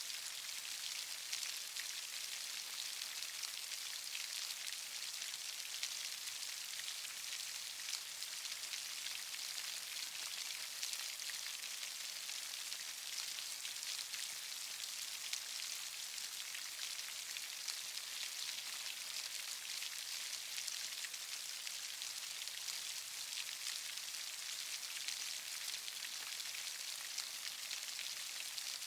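Steady rain falling, a dense hiss of many small drop patters hitting a surface, unchanging throughout.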